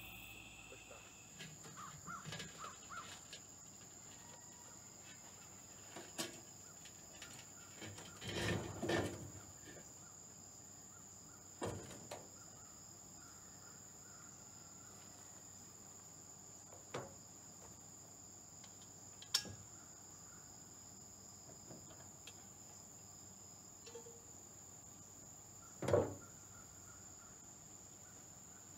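A steady, high-pitched insect chorus, typical of crickets on a summer evening, with a handful of short knocks and clatters from things being handled on a metal table, the loudest near the end.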